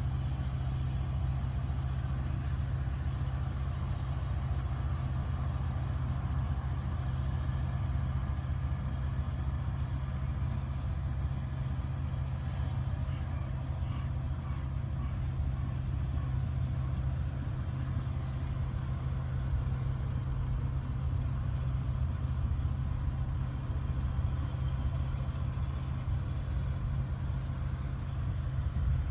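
A steady low engine rumble like a vehicle idling, unchanging throughout, with a faint high, evenly repeating chirring above it.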